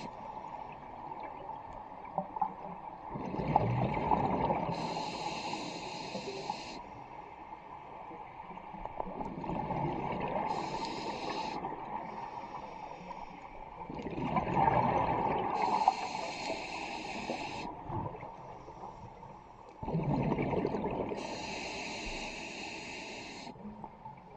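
Scuba diver breathing through a regulator underwater: four breaths, each a burst of bubbling exhaust from the exhale and a steady hiss of the demand valve on the inhale, about every five to six seconds.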